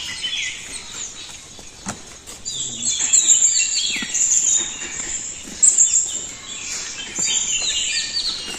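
A chorus of many birds chirping and calling at once: rapid overlapping chirps and short falling whistles.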